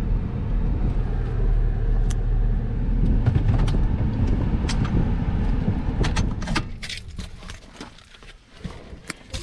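Car's engine and tyres rumbling steadily, heard from inside the cabin while rolling slowly over gravel, with scattered small clicks. About six and a half seconds in the rumble stops, as when the engine is switched off, leaving a few sharp clicks and key rattles.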